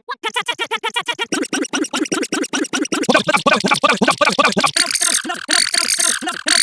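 A rapid chain of short, sped-up sound clips repeating several times a second. They overlap more and more, thicken after about a second, and gain a harsh hiss about five seconds in.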